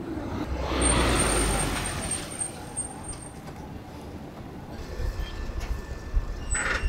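A vehicle passing on the road: traffic noise that swells about a second in and fades over the next couple of seconds, with a thin high whine riding on it, then steady street background and a short sharper sound near the end.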